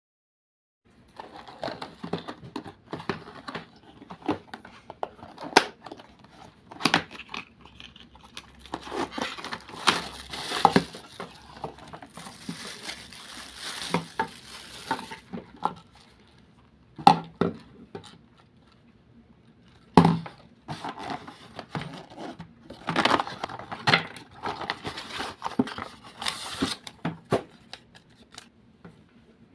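Packaging being handled and opened: plastic and cardboard crinkling and tearing, with many sharp clicks and knocks. The rustling swells in two longer stretches, one in the middle and one near the end.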